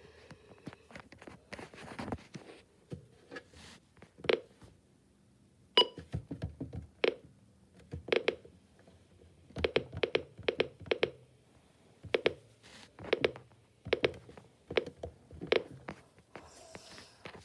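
A dozen or so sharp clicks and knocks at irregular intervals, some in quick pairs, over a faint low hum in the middle stretch.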